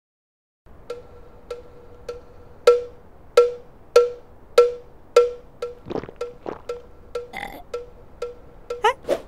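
Mallet tapping a spaceship's metal hull, a cartoon sound effect: evenly spaced, pitched knocks that ring briefly, about one every 0.6 seconds, making a steady beat. The knocks start about a second in, are loudest in the middle and softer towards the end.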